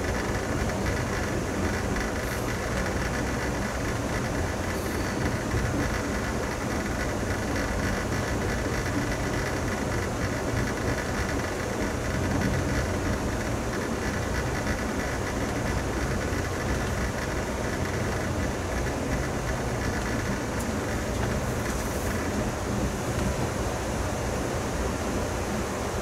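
Steady rumble and hiss of an Amtrak passenger train running at speed, heard from inside the car as its wheels roll along the rails.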